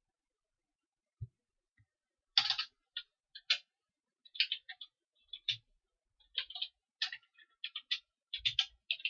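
Computer keyboard being typed on: irregular key clicks starting about two seconds in, after a single soft knock.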